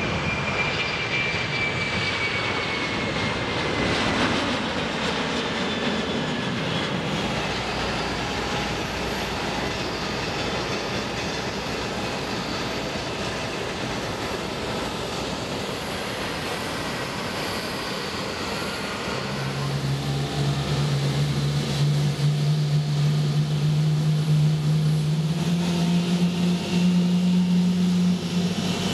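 Jet airliner engines running with a steady roar. Early on a high whine falls slowly in pitch as an Airbus A330-200 moves on the runway. About two-thirds in, a louder low hum sets in around a Boeing 777-300ER at the gate and steps up in pitch.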